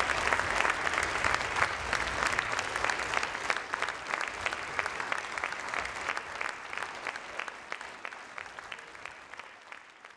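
Audience applauding, many hands clapping together, fading out gradually toward the end.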